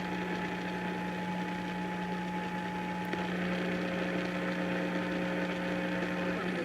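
Steady electrical mains hum under a low hiss, with a faint thin tone that changes to a lower one about three seconds in.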